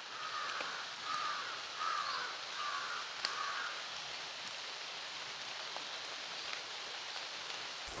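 A crow cawing: about five harsh caws, each under half a second, in a quick series over the first few seconds. A steady hiss of forest background follows.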